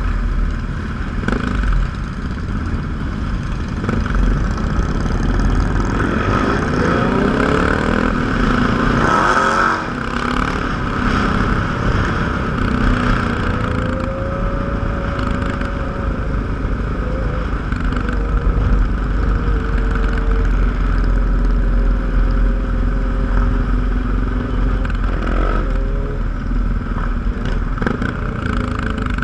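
Motorcycles riding together in a large group, their engines running steadily. Engine pitch rises and falls as bikes accelerate and shift, most clearly in a stretch several seconds in and again near the end.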